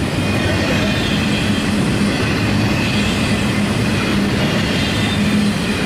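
Double-stack intermodal well cars rolling past: a steady rumble of steel wheels on rail.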